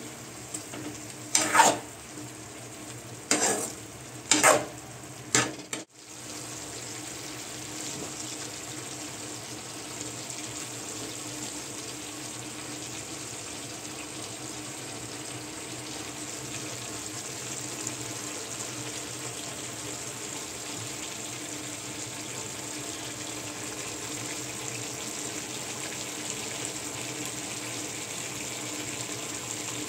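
Food sizzling in a cooking pan, with a spoon stirring and scraping the pan in four short strokes in the first few seconds. After an abrupt break about six seconds in, steady sizzling with no stirring.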